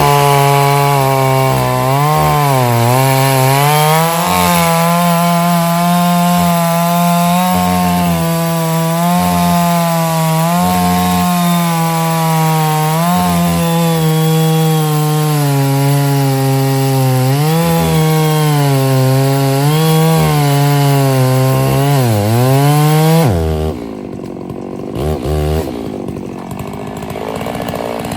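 Stihl chainsaw running at full throttle while bucking firewood, its engine pitch dipping and recovering again and again as the chain bites into the wood. About 23 seconds in, the saw drops back to a much quieter idle, with one short blip of throttle soon after.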